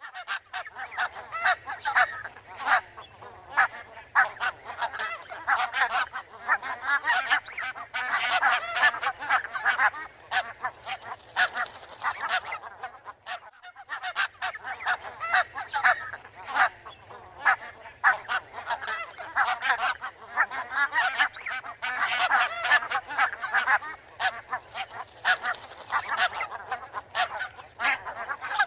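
A flock of barnacle geese calling, many short honks overlapping densely, with a brief break about halfway through.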